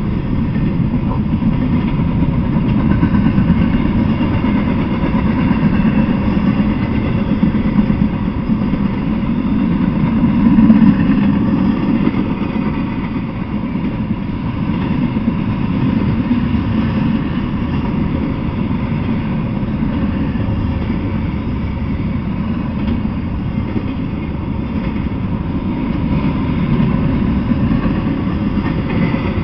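Double-stack intermodal freight train rolling past: a steady low rumble of steel wheels on the rails as the container well cars go by, swelling briefly about ten seconds in.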